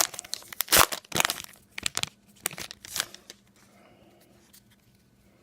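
A trading card pack wrapper being torn open and crinkled: a run of sharp crackling tears over the first three seconds or so, then it goes quiet.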